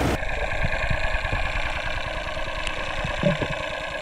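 Muffled underwater sound from a submerged camera: splashing cuts off abruptly at the start, leaving a steady dull hum with a few faint clicks and one short low thump about three seconds in.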